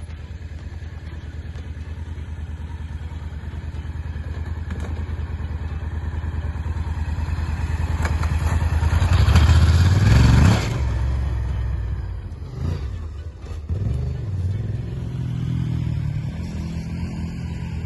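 Honda XL1000 Varadero's V-twin engine running, growing steadily louder for about ten seconds, then dropping off suddenly and running on more unevenly at a lower level.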